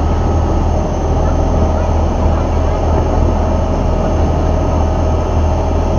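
River tourist boat's engine running steadily under way: a deep, even drone with a steady whine above it, over the rush of the churning wake along the hull.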